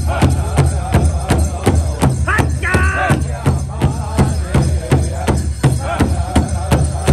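Powwow drum group: several drummers striking one large shared hide drum together in an even beat of about four strokes a second, with the group singing over it. A high voice rises above the others about two to three seconds in.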